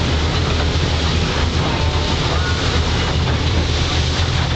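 Fast passenger boat under way, heard inside its cabin: a steady low engine drone with a dense rushing hiss over it, unchanging throughout.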